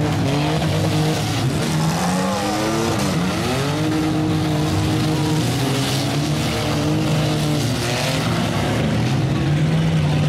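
Engines of several demolition derby trucks and vans revving at once, their pitch rising and falling as they drive and ram each other, one dropping sharply and climbing again about three seconds in, over a steady din of arena noise.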